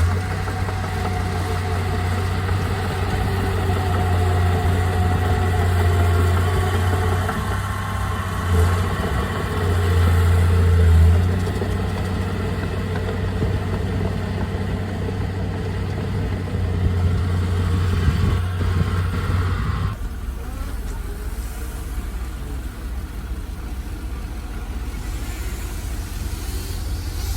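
Heavy diesel engine of land-clearing machinery running steadily with a deep hum. It grows briefly louder about ten seconds in and drops to a quieter, lower hum about twenty seconds in.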